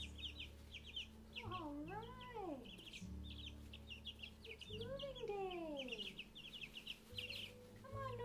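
Two-week-old chicken chicks peeping rapidly and continuously, many short high peeps overlapping. Around two and five seconds in, a longer call slides up and down in pitch over the peeping.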